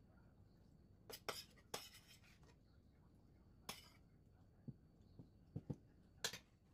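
Near silence with a scattering of soft clicks and light taps from kitchen things being handled.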